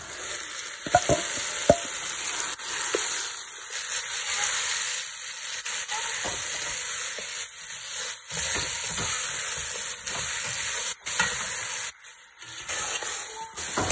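Marinated chicken pieces just added to browned onions, sizzling in hot oil in a pot as they are stirred with a spatula. There is a steady sizzle with a few knocks of the spatula against the pot.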